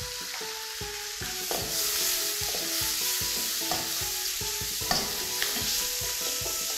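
Diced bacon and shiitake mushrooms sizzling in a non-stick wok while a spatula stirs and scrapes them around the pan, with a steady hiss of frying and repeated scraping strokes.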